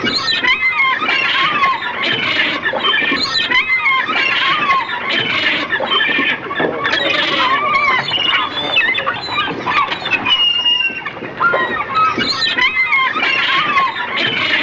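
Many birds calling at once: dense overlapping squealing and squawking calls that keep bending up and down in pitch.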